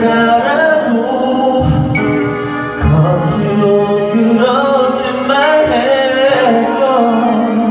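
A man singing into a handheld karaoke microphone, holding long notes that waver in pitch, over karaoke backing music.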